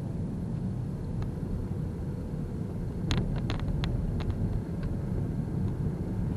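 Car driving, heard from inside the cabin: a steady low rumble of engine and road noise, with a short run of irregular sharp clicks about three to five seconds in.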